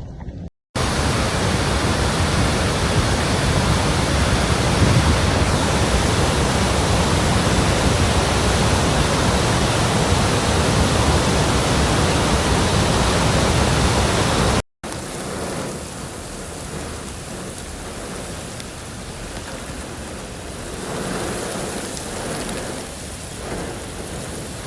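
Loud, steady rush of rainstorm water noise with no distinct events. About halfway through it cuts briefly and returns as a quieter stretch of the same even rush.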